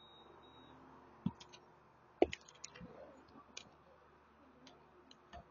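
Scattered clicks and light knocks from a mobile phone being handled and repositioned, the loudest about two seconds in.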